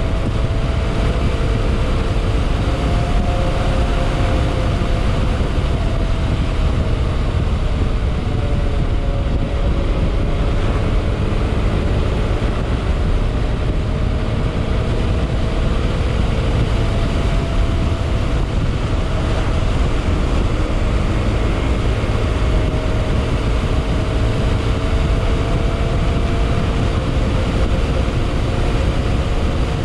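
Yamaha XMAX scooter running on the road, its engine and exhaust note drifting up and down in pitch as speed changes, dipping about a third of the way in and climbing again, over a steady rush of noise.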